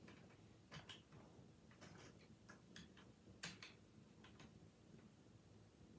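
Faint, irregular clicks of plastic Lego bricks being handled and pressed together.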